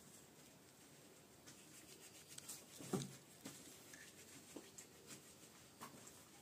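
Near silence with faint scattered rustles and small clicks, and one sharper knock about three seconds in.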